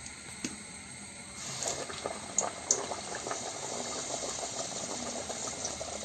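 Mangalore bun (banana and maida dough) going into hot oil and deep-frying: after about a second and a half a dense, crackling sizzle starts and carries on steadily.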